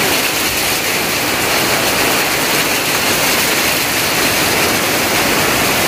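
Heavy rain pouring down steadily, hissing and drumming on tarpaulins and corrugated tin roofs.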